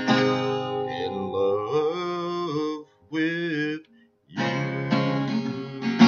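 Acoustic guitar strummed under the sung closing line of a country song, the voice holding long notes with vibrato. After a brief break a little before the middle, the guitar strums on alone in an even rhythm.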